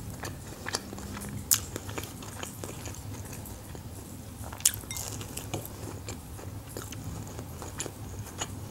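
A person chewing food close to the microphone, with wet mouth sounds and short crisp clicks of bites. Sharp clicks come about a second and a half in and again near the middle, as she bites into a batter-fried shrimp.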